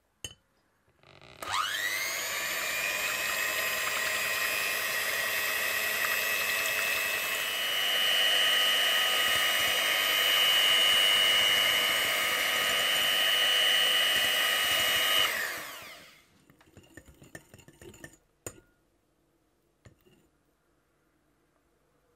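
Electric hand mixer whipping fresh cream: the motor whirs up with a rising whine about a second and a half in, runs steadily, steps up to a higher pitch about halfway through, and winds down after about fifteen seconds. A few light clicks follow.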